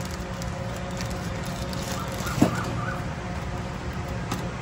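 Steady background hum and noise at a street-side food stall, with a brief rising squeak about halfway through.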